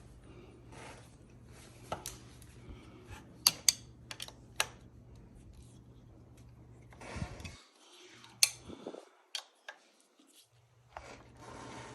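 Small metal hand tools and bike parts clinking and clicking as they are handled during brake installation: scattered sharp metallic taps, the loudest a few seconds in and again about two-thirds through, over a low steady hum.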